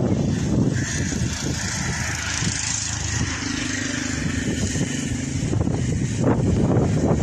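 A motor vehicle driving past, its engine holding a steady note for about two seconds in the middle, over wind rumbling on the microphone.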